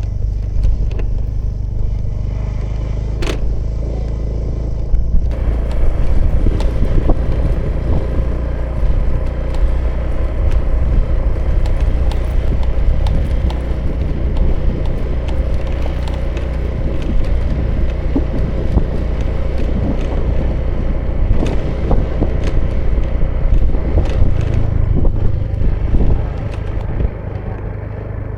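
2018 Honda Vision scooter's small single-cylinder engine running steadily under way, heard from the rider's seat. A rushing wind and road noise grows louder about five seconds in and eases off near the end, as the scooter speeds up and then slows.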